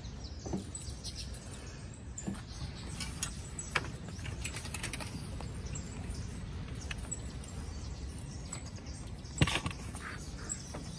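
Canvas of a Campings World UpCamp rooftop tent rustling and flapping as it is folded inward by hand, with scattered light clicks and knocks from its frame and fittings. A single sharp click comes about nine seconds in.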